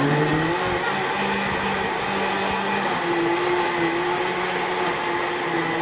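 Countertop electric blender running steadily at full speed, churning yogurt, sugar and milk into lassi.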